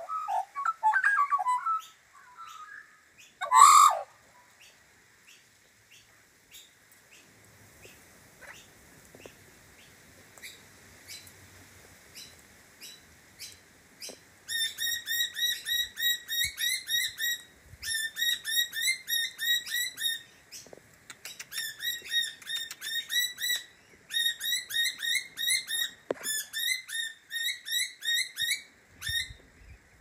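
Birds calling: a brief burst of Australian magpie warbling at the start, a single loud harsh squawk just before four seconds in, then, from about halfway, long runs of rapid, high, evenly repeated chirps in groups of a few seconds each.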